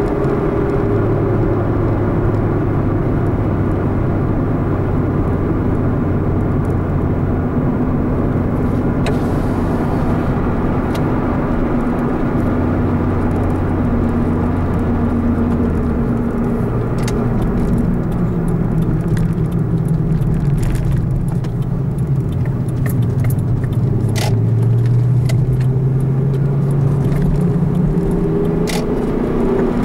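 A car's engine and tyre noise heard from inside the cabin while driving at a steady speed. The engine note drops about halfway through as the car slows, then rises near the end as it speeds up again, with scattered light clicks in the second half.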